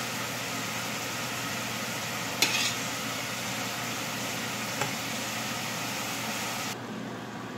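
Thick sambal sauce hissing steadily as it cooks in a stainless steel pan while a metal ladle stirs it, with a sharp clink of the ladle against the pan about two and a half seconds in and a lighter one near five seconds. The hiss thins out near the end.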